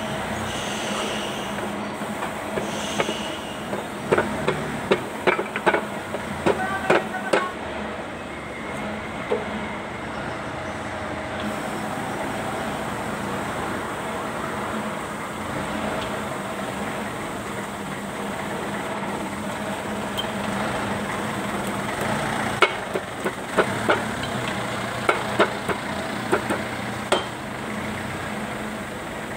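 Scattered sharp metal clinks and knocks from tractor axle parts and tools being handled, in two bunches: one about four to seven seconds in and another about twenty-three to twenty-seven seconds in. Under them runs a steady low hum of workshop background noise.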